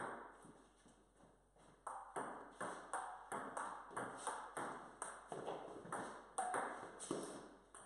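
Table tennis rally: a plastic ball clicking off paddles and the table, about three hits a second, from about two seconds in, with a short echo in a bare concrete garage. There is a single click right at the start, before a brief lull.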